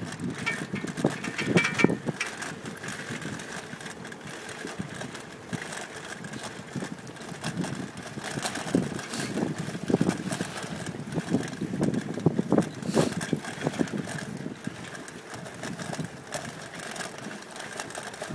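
Wind buffeting the microphone with road rumble and rattles from riding along a paved street, under a faint steady high whine.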